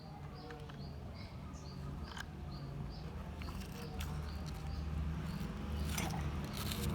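A small bird chirping a short, slightly falling note over and over, about two to three times a second, over a steady low rumble and scattered sharp clicks.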